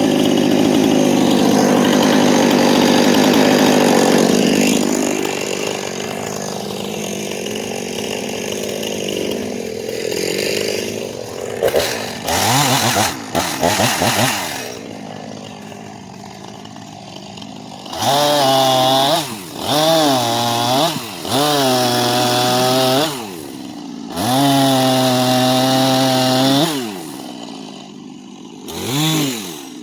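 Gas chainsaw cutting dead ash wood under load for the first few seconds, then dropping to a lower steady run. Later it is revved up and let fall several times in short bursts, each a rising then falling engine pitch.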